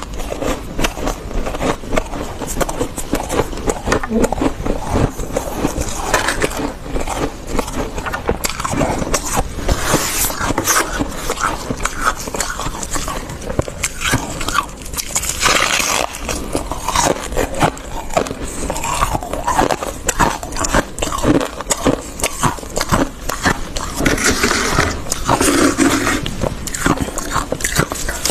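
Fluffy freezer frost being scraped and bitten and chewed, a dense run of crisp crunches and crackles with louder bursts every few seconds.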